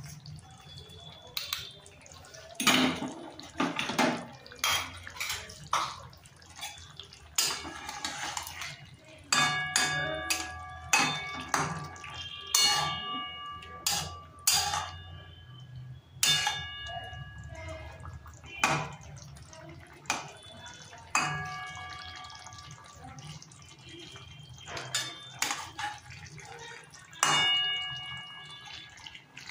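A metal spoon scraping and tapping inside a metal tea strainer and against the rim of a metal kadai, pressing mustard paste through the mesh, with many sharp clinks that ring briefly. Near the end a spatula clinks against the pan.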